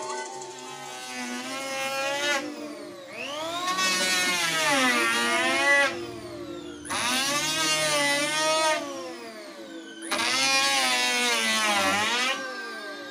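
Electric hand planer running and shaving a wooden tabletop in repeated passes. The motor's pitch dips and recovers with each pass, with three louder cutting stretches after the first few seconds.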